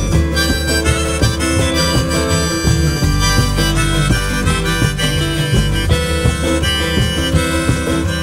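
Instrumental music break: a harmonica lead over guitar and a steady bass line.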